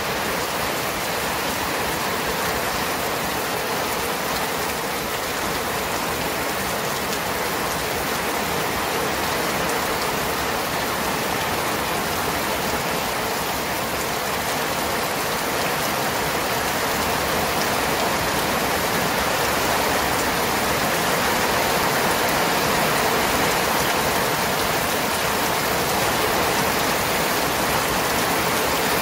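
Steady rain falling, an even hiss that grows slightly louder about halfway through.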